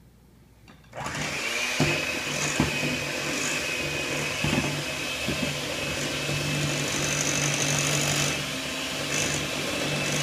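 Electric hand mixer switched on about a second in, then running steadily with a low hum and a high whine as its beaters work a thick mixture in a glass bowl, with occasional knocks against the bowl.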